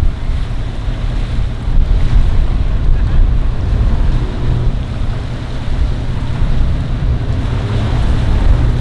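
Wind buffeting the microphone: a loud, steady low rumble, with a faint steady hum beneath it.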